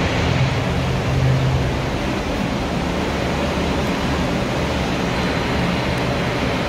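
Paint spray booth's ventilation running: a steady rush of moving air with a low hum underneath.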